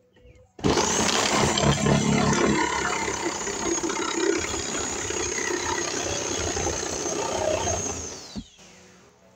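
A loud motor-driven noise starts suddenly, runs steadily for about eight seconds, then winds down and stops.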